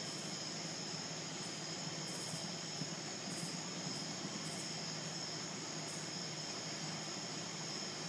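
Steady chorus of night insects, a continuous high-pitched trilling over a low steady hum.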